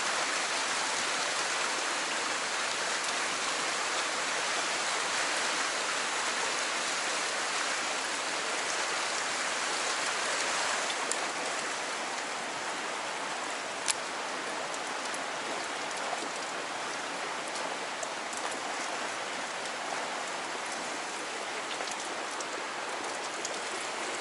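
Fast water rushing through a narrow rock channel: a steady hiss of current, with one sharp click partway through.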